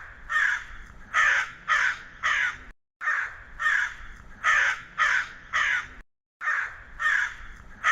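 Crow cawing: repeated caws in three bouts of about five or six calls each, with a brief pause between bouts.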